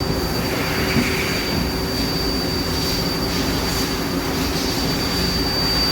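Steady machine-shop hum from a powered-up CNC lathe and nearby machinery, with a constant high-pitched whine over it.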